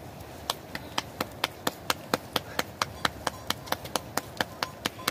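Dough being patted flat between the palms to shape a roti flatbread: quick, even slaps, about five a second.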